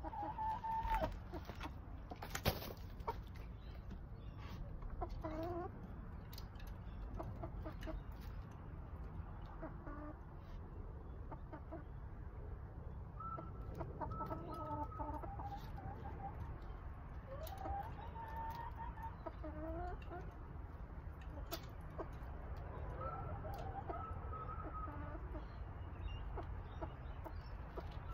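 A chicken clucking at intervals, with a sharp click about two seconds in.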